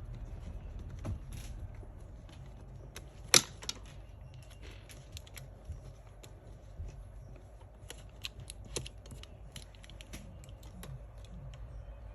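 Small clicks and taps of metal and plastic laptop parts being handled and fitted by hand, with one sharp, louder click about three and a half seconds in, over a low steady hum.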